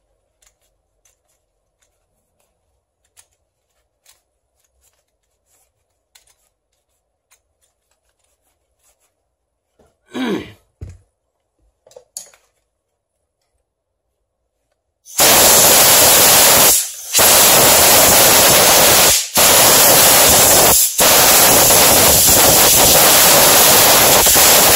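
Light clicks of parts being handled and a brief clatter. Then a compressed-air blow gun starts up with a loud, steady hiss, cut by three short breaks, blowing dust out of a cordless hammer drill's opened housing.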